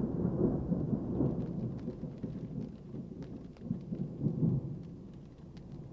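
Rolling thunder rumbling low and deep, loudest at first, swelling again about four seconds in and then dying away, with scattered raindrop ticks over it.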